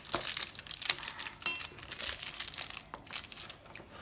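Homemade slime being squished and worked by hand, giving irregular wet clicks and crackles.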